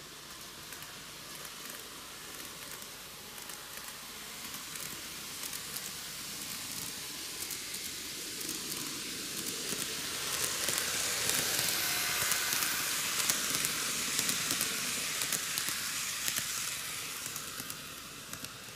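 N-gauge model train, a Microace Meitetsu KiHa 8000 series six-car set, running past on TOMIX superelevated track: a hissing rolling noise with rapid clicks from the wheels over the rail joints, growing louder to a peak about halfway through and fading near the end.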